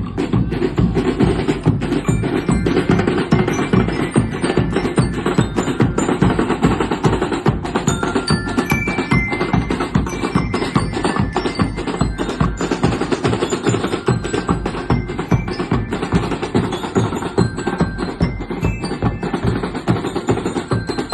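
Music with dense, fast percussion and short bell-like mallet notes ringing over it.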